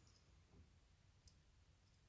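Near silence with two faint, brief clicks of small lock pins being handled while the padlock's second pin chamber is emptied.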